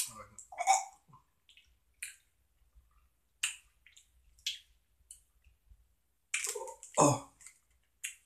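Mouth noises of a person chewing sour gummy candy: scattered short wet smacks and clicks, then a louder, longer throat sound about seven seconds in.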